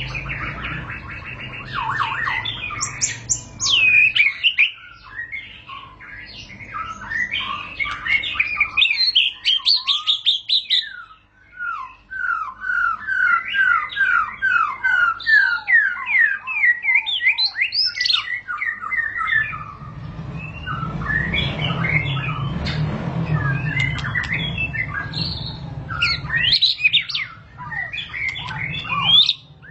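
White-rumped shama singing a long, near-continuous rolling song ('ngerol') of rapid, varied whistles and chattering phrases. Midway there is a brief pause, then a run of quickly repeated slurred notes. Later a low rumble sits under the song for several seconds.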